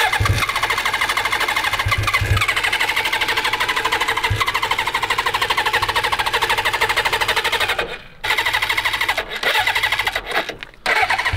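Motorcycle engine catching and running with a fast, even firing beat, then faltering: it drops out briefly about eight seconds in and again near the end before picking up. It runs as if over-choked.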